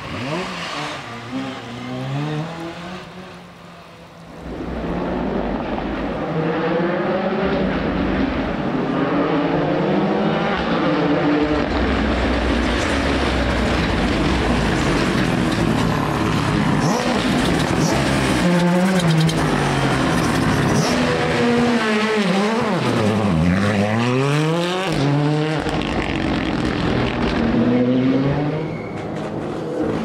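Rally car engines revving hard as cars go through corners, one after another: the revs climb in steps through the gear changes, fall away under braking and rise again on the way out. Quieter in the first few seconds, then loud and continuous, with one deep drop and climb a little after twenty-three seconds, typical of braking into a hairpin and accelerating out.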